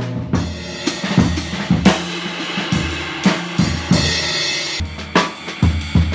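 Drum kit played with sticks: drum hits every half second or so, with cymbals crashing and ringing over them.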